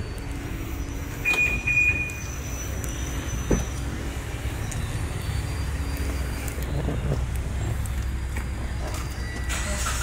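Aftermarket keyless car alarm giving one short high beep about a second in, followed by a single click a couple of seconds later, over a steady low rumble.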